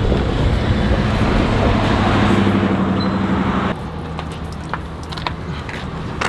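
Boat motor running under way, with rushing wind and water. About four seconds in it cuts abruptly to a quieter, steady engine hum with a few light ticks.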